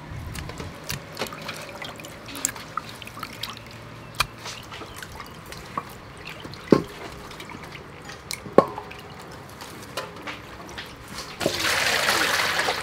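Water dripping and trickling while sea mushrooms are washed in metal bowls and a steel colander, with small clicks and a few sharp knocks of metal. About 11.5 s in, a steady pour of water from a scoop starts and is the loudest sound.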